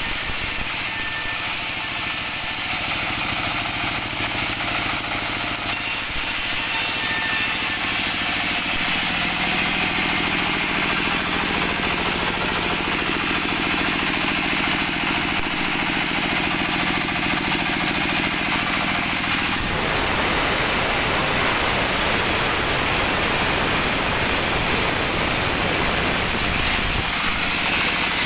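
Band sawmill running loud and steady. About twenty seconds in, the sound grows fuller and deeper as the blade cuts into a log and throws out sawdust.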